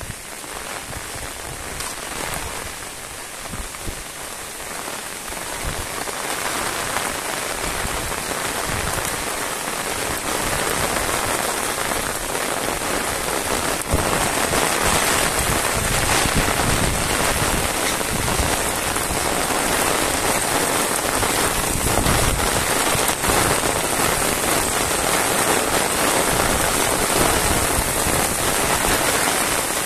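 Heavy rain falling on a paved road and roadside grass: a steady hiss of drops that grows louder over the first half and then holds.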